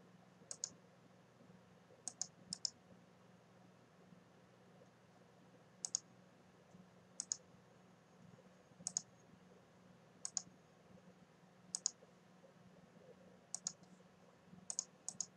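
Computer mouse button clicking, single sharp light clicks and quick pairs every second or two, at irregular intervals, over a faint steady low hum.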